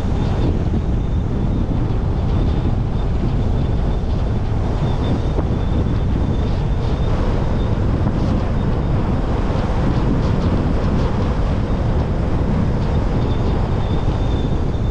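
Steady wind rush and road noise of a car driving, with wind buffeting the microphone. A faint thin high tone comes and goes.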